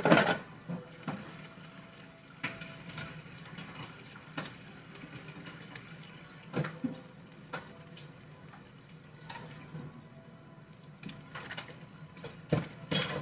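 Light kitchen clatter from food preparation: scattered short clicks and knocks a second or more apart, over a faint steady hiss.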